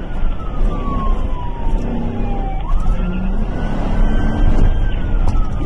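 Police car siren on a slow wail: the tone falls steadily, sweeps back up about two and a half seconds in, then falls again near the end. Under it runs constant engine and road noise from the pursuing patrol car.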